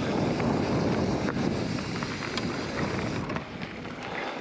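Wind rushing over the microphone and tyre noise of a hardtail mountain bike rolling along a dirt trail, with a few faint clicks and rattles.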